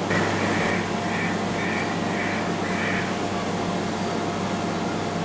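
Steady low hum and noise of a busy container port. For the first three seconds, short high-pitched sounds repeat about twice a second and then stop.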